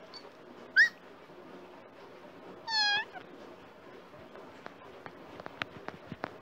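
Domestic tabby cat meowing: a short rising call about a second in, then one longer meow around three seconds in that falls in pitch at its end. A few faint clicks near the end.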